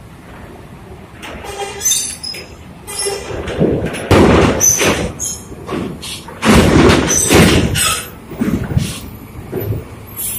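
A bus moving heavily, with irregular loud rumbles and clanks and brief high metallic squeals. The loudest moments come about four and seven seconds in.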